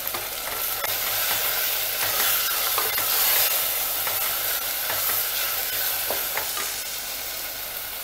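Onion-tomato masala sizzling steadily in hot oil in an aluminium pressure cooker, with light scrapes of a wooden spatula stirring it.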